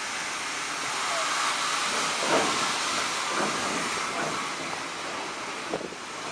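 Steam tank locomotive Kitson & Co A.No.5 moving off slowly with steam hissing from around its cylinders. About four chuffs, roughly a second apart, sound over the hiss.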